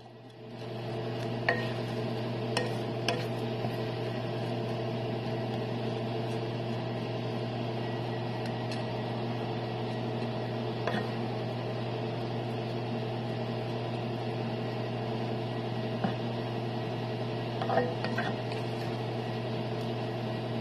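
Spatula stirring a chicken and vegetable filling in a pan, with scattered light clicks and scrapes against the pan, over a steady electrical hum that fades in during the first second.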